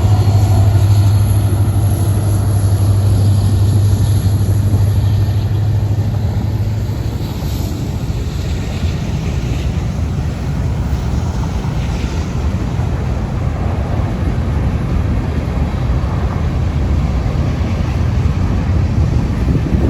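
Union Pacific grain train's freight cars rolling past on the rails in a steady rumble, with wind buffeting the microphone. A low hum runs under it for the first seven seconds or so, then fades.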